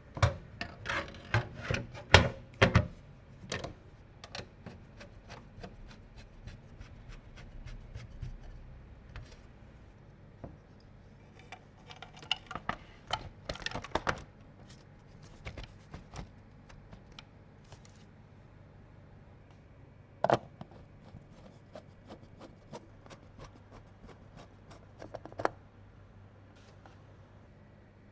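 PC components being handled and fitted during assembly: scattered clicks, taps and rubbing, busiest near the start and again about halfway, then two single sharp knocks later on.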